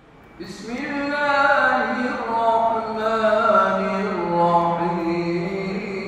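A man chanting solo in long, ornamented notes that glide slowly up and down, in the style of Islamic religious chant. It starts out of near silence about half a second in.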